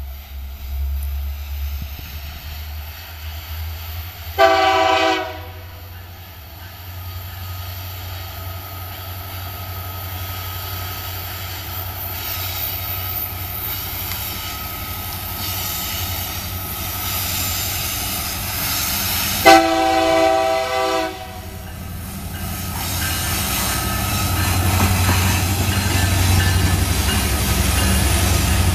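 Diesel freight locomotive sounding its horn twice, a short blast about four seconds in and a longer one about twenty seconds in, over the low rumble of its engine, which grows louder as the locomotive passes close by near the end.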